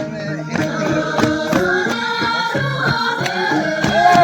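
Music playing: a song with singing over instruments and a steady beat.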